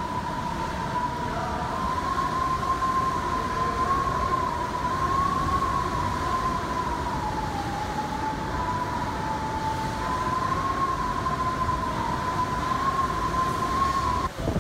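Hurricane wind whistling through gaps around the building's windows and doors: one high whistle that wavers slightly in pitch over a steady rushing roar. The whistle breaks off just before the end.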